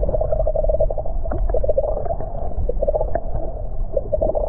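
Water sloshing and gurgling close to the microphone in small waves, over a steady low rumble.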